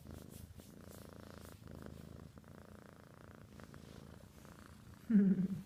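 A kitten purring steadily, close up. Near the end a brief, louder voice cuts in.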